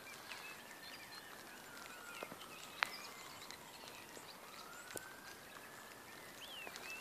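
Raindrops dripping from a wet metal field gate: single sharp drip clicks at irregular intervals, the loudest about three seconds in and another about five seconds in. Small birds chirp faintly, and a faint tone rises and falls slowly twice in the background.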